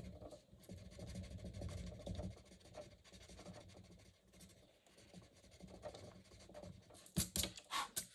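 Pencil blender rubbing over layers of coloured pencil on paper: a faint, uneven scratching as the colours are blended. Near the end come a few louder knocks as the sheet is handled.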